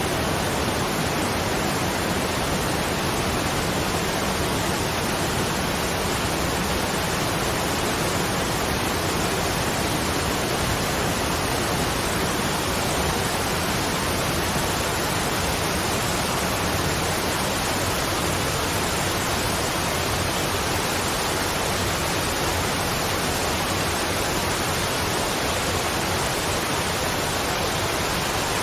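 Waterfall: a steady, even rush of falling water that does not change in level.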